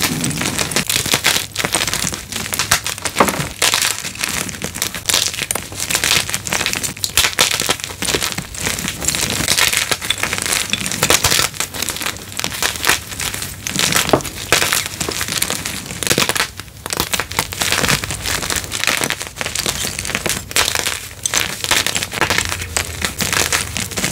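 Blocks of crunchy gym chalk being crushed: a dense, continuous run of crunching and crumbling crackles.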